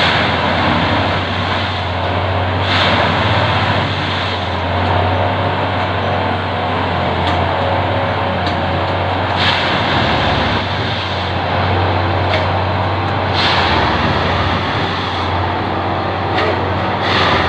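Railway ballast tamping machine at work: a heavy engine running steadily under loud mechanical clatter, with brief louder bursts every few seconds.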